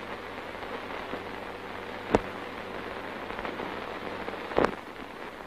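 Steady hiss and crackle of an old 1940s film soundtrack, with two sharp clicks, about two seconds in and again about four and a half seconds in.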